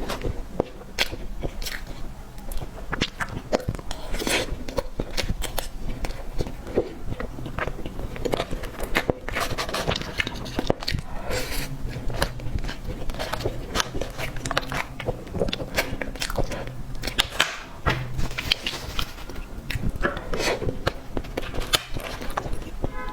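Close-miked chewing and biting of cake, a steady run of many short mouth clicks.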